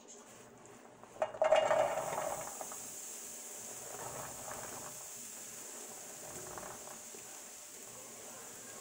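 Freshly cut corn kernels pushed off a cutting board into a hot dry pan: a clattering, sizzling rush as the first pile lands about a second in, then a steady hissing sizzle, with two smaller scrapes of kernels into the pan later on.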